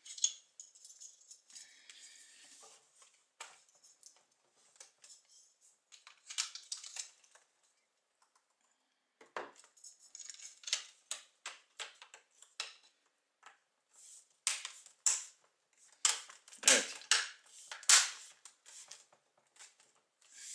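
Plastic screen-bezel clips of a Lenovo IdeaPad 320-15IKB laptop lid snapping into place as the bezel is pressed down around its edges: a run of sharp, irregular clicks with light plastic handling, louder and closer together in the second half.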